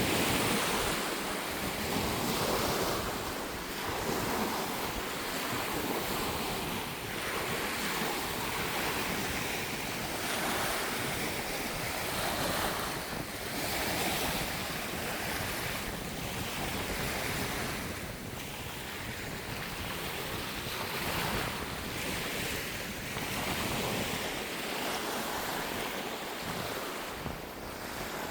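Sea waves washing in, swelling and easing every second or two, with wind buffeting the microphone.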